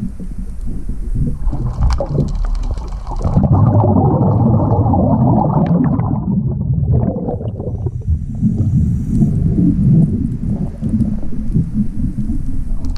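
A diver breathing through a regulator underwater: a faint hiss on each breath in, then a low bubbling rumble as exhaled bubbles stream past, twice.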